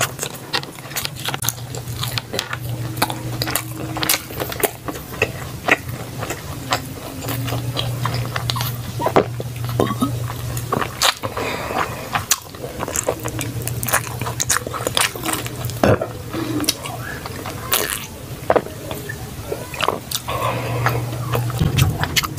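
Close-miked chewing and biting of food, with many short crunchy clicks and smacks. A low hum comes and goes underneath.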